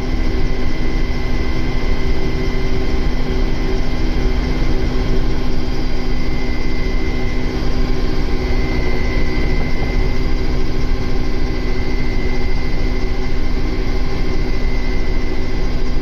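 Helicopter engine and rotor noise heard from inside the cabin: a loud, steady drone with a steady high whine over it.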